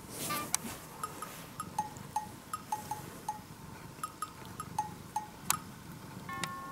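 Light background music of short, bell-like plucked notes at a bouncy pace, with a brief cloth rustle at the start.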